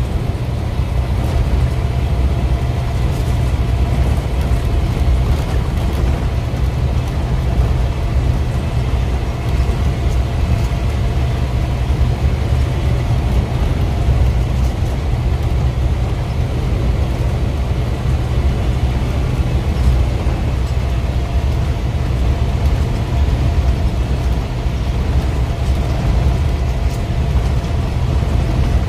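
Steady engine rumble and tyre and road noise heard from inside the cab of a vehicle cruising along a highway.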